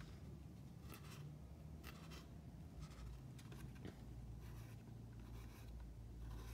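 Faint scratching of a whiteboard marker's felt tip on thin card, a run of short strokes as small eyelash lines are drawn.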